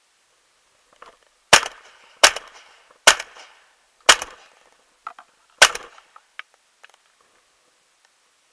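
Shotgun fired five times in quick succession, the shots roughly a second apart, each with a short echoing tail; a few faint clicks follow the last shot.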